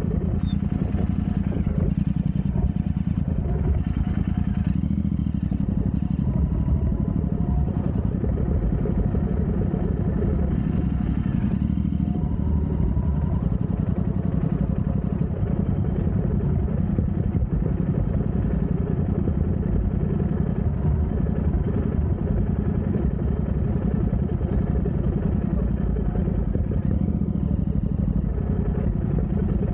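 Continental GT motorcycle engine running steadily at an even level, with no clear rises or falls in revs.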